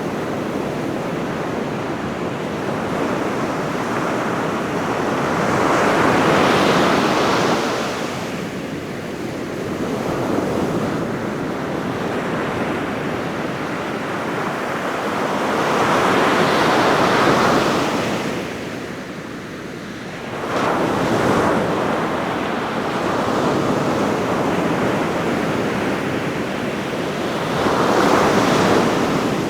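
Ocean waves breaking on a beach, a continuous wash of surf that swells into louder crashes about every ten seconds, with some wind.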